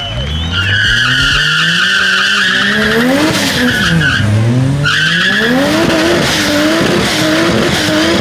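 Muscle car doing a burnout: the engine revs climb, fall about four seconds in and climb again, then rise and fall in short bursts at high revs, while the spinning rear tyres give a high, steady screech that drops out for a moment about four seconds in and comes back.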